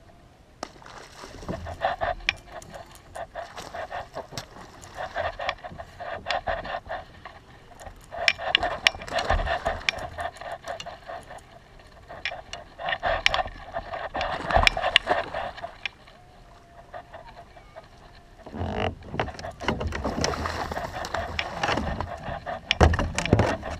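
Spinning fishing reel whirring in repeated stretches of a few seconds during the fight with a hooked tarpon, with sharp clicks and low knocks against the kayak hull.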